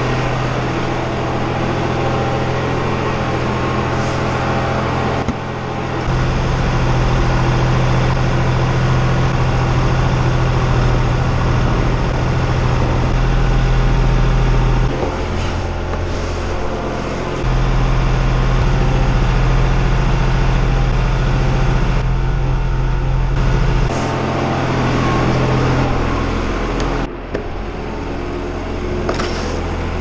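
Engine driving a Trioliet Gigant 700 self-loading feed mixer, running steadily with a low hum whose pitch and level shift several times as the load changes. A few short scrapes or knocks near the end.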